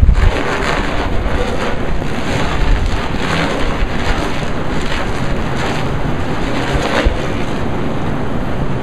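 Strong gusty wind of about 20-30 mph buffeting the microphone: a loud rushing noise with an uneven low rumble, heaviest right at the start.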